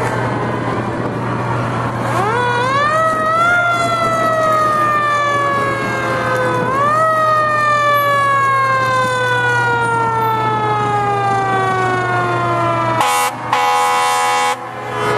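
Fire engine siren winding up quickly, then slowly sliding down in pitch, winding up again about halfway through and sliding down once more. Near the end comes a steady air horn blast of about a second and a half with a short break, over a low engine rumble.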